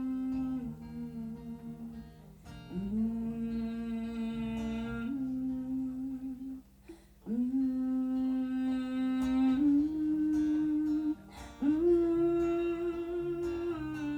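A singer humming a wordless melody in long held notes, several of them sliding up into pitch, over fingerpicked acoustic guitar.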